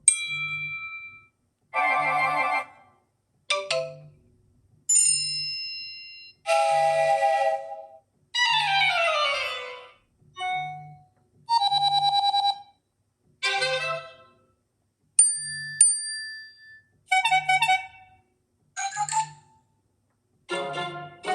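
A run of about a dozen different short iPhone iOS 16 alert tones played one after another, each lasting about a second with a brief silence between them. One is a quick falling glide. A faint low buzz sits under each tone.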